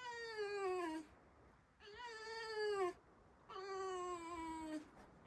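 Pet fox squeaking: three drawn-out whining calls of about a second each, every one falling in pitch. This is the fox's indignant morning squeak.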